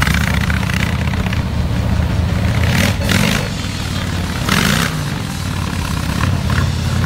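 Yamaha Warrior 1700's V-twin motorcycle engine running as it rides on snow, revving up and back down twice, about three seconds in and again about four and a half seconds in, each rev coming with a burst of hiss.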